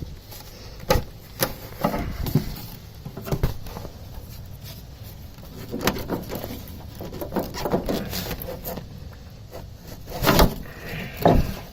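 Irregular knocks, clicks and clanks of hand-tool work on a school bus, with two louder knocks near the end.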